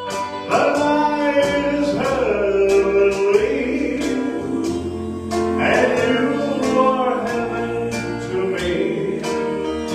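A male voice singing a slow song over backing music with a steady beat of about two strokes a second.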